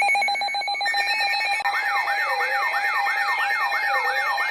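Emergency Alert System attention signal for a Child Abduction Emergency (Amber Alert): a rapidly pulsing electronic tone that, about a second and a half in, gives way to a repeating electronic siren of quick falling sweeps, about two to three a second.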